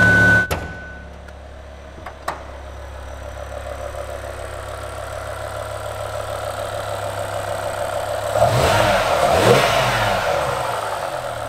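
BMW M6's V10 engine idling with the bonnet open, then revved once about eight seconds in, its pitch rising and falling back to idle. A brief high beep and a click come at the very start.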